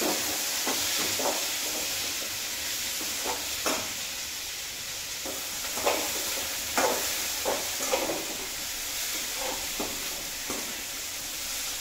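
Chopped onion, garlic, chilli and mixed vegetables sizzling steadily in hot oil in a metal kadhai. A spatula scrapes and clinks against the pan at irregular intervals as they are stirred.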